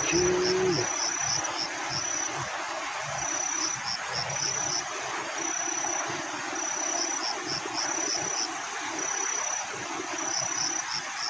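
An insect, cricket-like, calling over and over in a high-pitched pattern: a held buzz followed by a few short pulses, repeating every second or two, over a steady background hiss.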